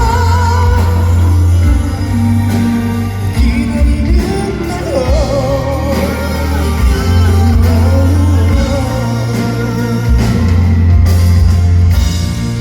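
Live pop-rock band music with a heavy bass line and guitar, loud and continuous, with wordless singing over it at times.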